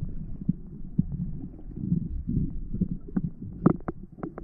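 Muffled underwater sound through a camera housing: a low rumble with irregular soft knocks, and a run of sharp clicks in the second half.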